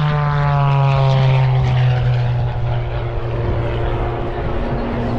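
Propeller-driven aerobatic plane flying past, its engine note falling in pitch over the first two or three seconds and then holding steady.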